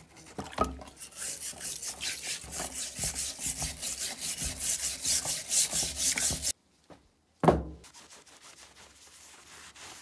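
Rapid wet scrubbing of a rusty steel cleaver blade in an electrolysis bath, rubbing strokes several a second, stopping abruptly about two-thirds in. After a short silence comes a single loud knock, then faint rubbing.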